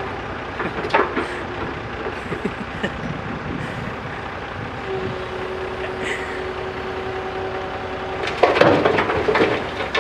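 JCB backhoe loader's diesel engine running under load while it digs and shifts soil, with a steady whine held for a few seconds mid-way. Sharp clattering strokes come about a second in, and a louder burst of clattering and crunching comes near the end.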